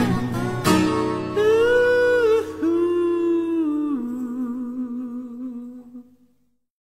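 Closing bars of a Burmese pop song: after a guitar strum, a voice holds three long notes, the last with a slight waver, and the music fades out about six seconds in, leaving silence.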